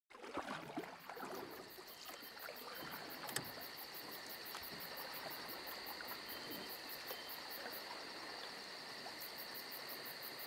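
Insects chirping: a steady high-pitched buzz with a fast, even train of very high pulsed chirps above it. There are a few faint knocks and rustles in the first couple of seconds and a single sharp click a little after three seconds in.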